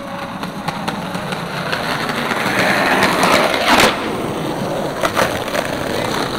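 Skateboard wheels rolling over rough pavement: a steady rumble that swells louder around the middle, with a few sharp clacks of the board, the loudest about four seconds in.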